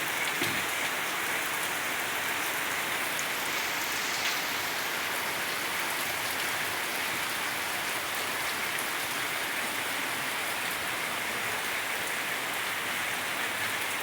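Steady heavy rain falling, a dense even hiss with a few faint drop ticks.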